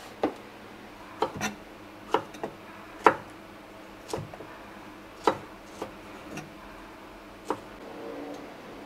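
A chef's knife slicing and dicing a tomato, the blade knocking on the cutting board in about ten single sharp taps at an irregular pace.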